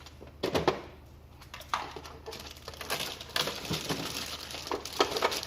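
Hard plastic items being handled and set down: scattered clicks and knocks with some rustling in between.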